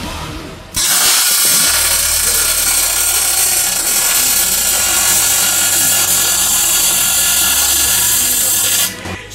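MIG welding arc burning steadily: a loud, even hiss that starts suddenly about a second in and cuts off near the end.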